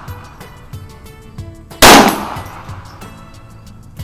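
A single shot from a Browning Medalist .22 LR target pistol about two seconds in: a sharp crack with a short echo trailing off.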